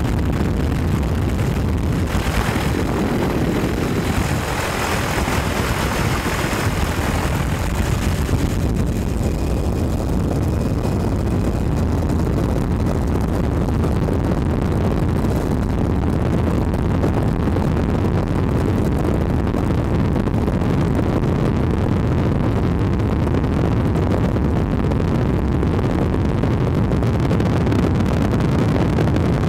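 Steady engine drone and rushing air of an aircraft, heard from on board, heaviest in the low end.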